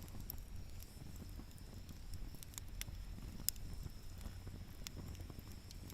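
Wood fire crackling: sharp, irregular pops a second or so apart over a low rumble.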